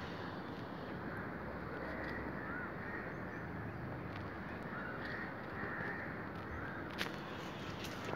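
Short bird calls, repeated every second or so, over a steady background rush of outdoor noise, with one sharp click about seven seconds in.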